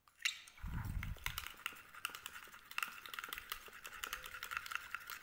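Steel spoon stirring a thick cream mixture in a small glass bowl: a fast, uneven run of light clicks and scrapes of metal against glass. A dull low bump about a second in.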